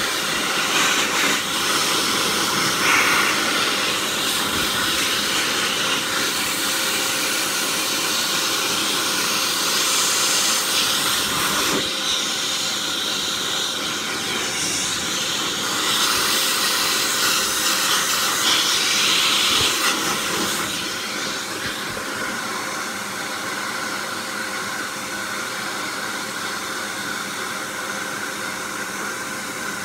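High-velocity dog dryer blasting a steady rush of air, with a thin motor whine underneath, blowing dust and fluff out of a fan heater's parts. The rush changes in strength as the nozzle moves and drops slightly about two-thirds of the way through.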